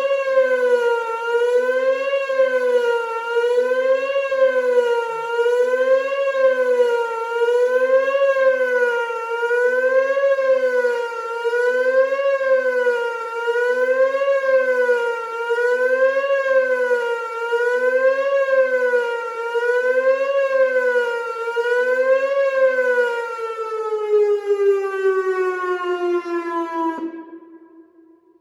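Whelen WPS 2910 electronic warning siren sounding a loud, wavering tone that rises and falls about once every second and a half during its monthly test. About 23 seconds in, the pitch slides steadily down and the tone dies away near the end.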